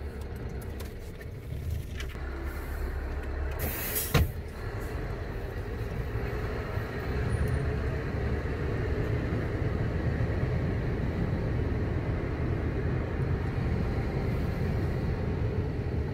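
Truck's diesel engine and road noise heard from inside the cab, a steady rumble that grows somewhat louder after about seven seconds, with one brief sharp sound about four seconds in.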